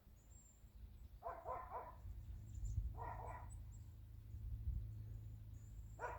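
An animal calling in short pulsed runs, twice in the middle and again near the end, over a low steady rumble.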